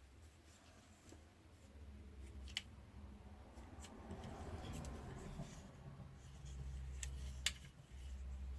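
Faint handling of small parts: a few sharp clicks and light rustling over a steady low hum.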